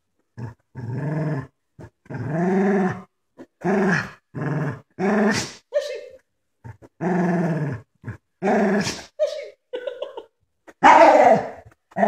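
A dog growling in play, in a string of about ten short growls, each under a second long, with brief pauses between them. The loudest growl comes near the end.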